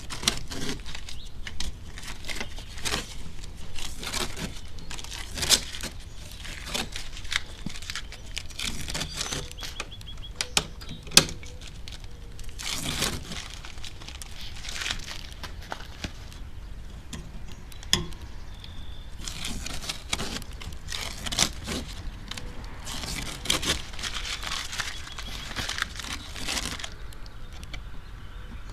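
Hands working on a plastic aftermarket-style front spoiler piece: irregular sharp snaps and clicks as its fold-off plastic tabs are broken off, among stretches of rustling and tearing from painter's tape being peeled and crumpled.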